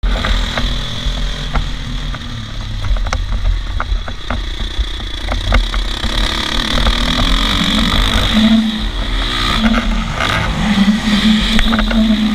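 Dirt bike engine revving up and down as it is ridden around a motocross track, under heavy wind rumble on the microphone, with scattered sharp ticks.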